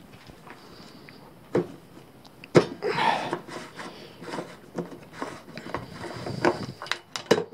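Hand handling noises on a plastic fuel tank: a few sharp knocks and a scraping rustle as the filler cap is worked off.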